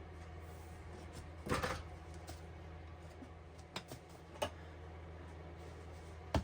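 A few light clicks and knocks of objects being handled, with a brief scraping rustle about a second and a half in, over a steady low hum.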